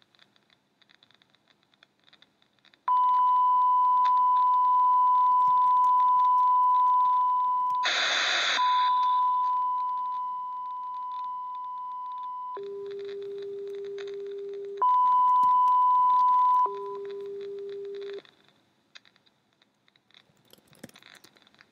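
Electronic test tone sent over an amateur television repeater's audio: a steady high-pitched beep for about ten seconds, broken by a brief burst of hiss near its middle. It then switches to a lower tone, back to the high one and to the low one again, and stops about three seconds before the end.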